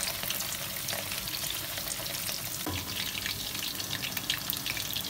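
Chicken kofta balls deep-frying in hot oil in a metal karahi: a steady sizzle with many small crackling pops.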